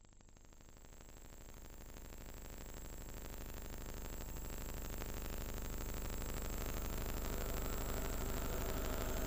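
Buzzing, droning soundtrack noise with a fast, even pulse and a thin high whine, fading in and growing steadily louder.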